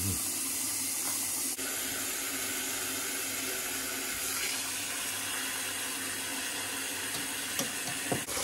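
Kitchen tap running steadily into a sink over a whole raw beef tongue being rinsed to wash out the blood, with a couple of light knocks near the end.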